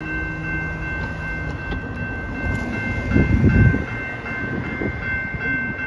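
Railroad crossing warning bell ringing steadily in a few high tones, sounding because a trolley is approaching. A brief low rumble comes about three seconds in.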